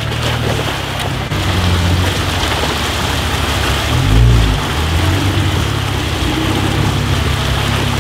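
Lifted Jeep Wrangler's engine running under load as its mud tyres churn and splash through a shallow, rocky creek, with a brief low swell about four seconds in.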